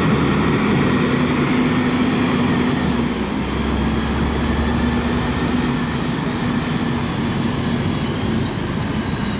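Gillig Phantom transit bus's diesel engine running under way as the bus pulls off and drives away, a steady engine drone that eases slightly as it gets farther off.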